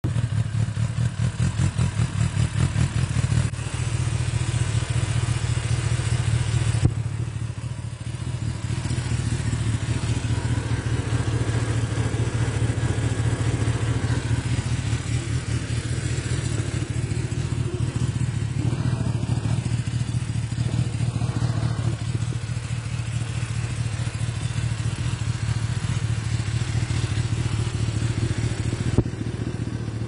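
A 2020 Kawasaki Ninja ZX-10R's inline-four engine idling steadily through a Yoshimura R-11 aftermarket exhaust, with no revving. The level changes abruptly a few times.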